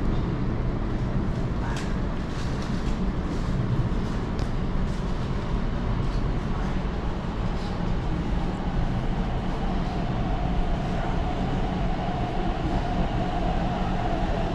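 MTR East Rail line R-Train electric multiple unit moving through the station without passengers: steady rumble of the train with a few wheel clicks early on, and a steady whine that comes in about ten seconds in.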